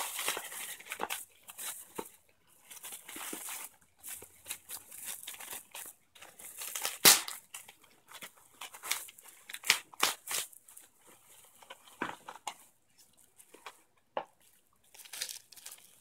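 Bubble wrap crinkling and rustling as it is pulled open and peeled off a small box by hand, in irregular crackles, with one sharper, louder crack about seven seconds in.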